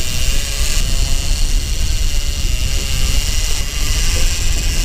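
Wind buffeting the microphone on an open boat deck: a heavy, uneven low rumble under a steady hiss.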